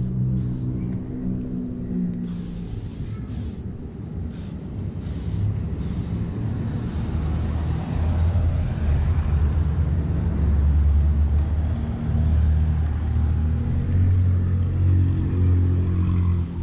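Short, repeated hisses of an aerosol spray paint can over a loud low rumble, which grows louder about halfway through.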